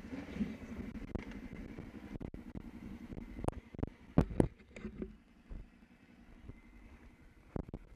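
Kawasaki ATV engine running at low speed on the trail and easing down to a faint idle, with a few sharp knocks and clunks about midway, the loudest about four seconds in, and another near the end.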